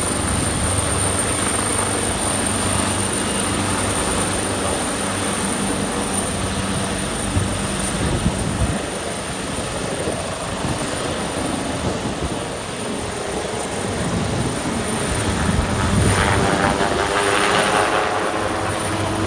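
Helicopter running steadily at the heliport, its engine and rotor beat low and continuous. A louder, higher-pitched sound swells in near the end.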